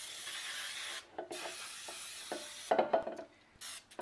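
Aerosol can of Baker's Joy flour-and-oil baking spray hissing as it coats a bundt pan: a long burst ending about a second in, a second burst to nearly three seconds, and short puffs near the end. A few short knocks come between the bursts.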